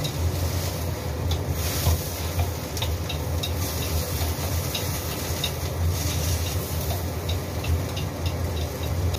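Food sizzling in a frying pan, with a few light clicks of a utensil stirring, over a steady low hum.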